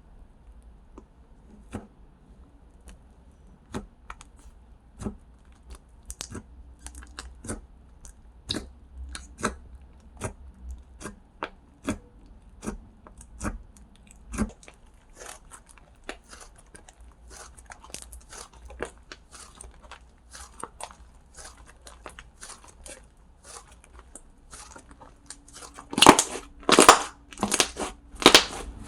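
Close-miked handling sounds: irregular sharp clicks and crackles, sparse at first and growing denser, from hands working slime and its packaging. A few much louder crinkling bursts come near the end.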